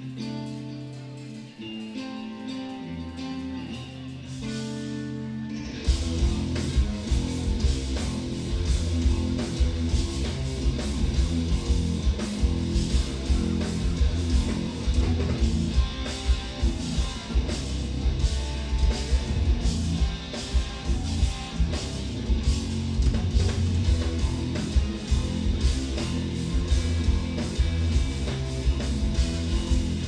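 Instrumental djent band playing live: two electric guitars play a clean, sparse passage alone, then about six seconds in the drum kit and the heavy low end come in together and the full band plays on, much louder, with fast, dense drumming.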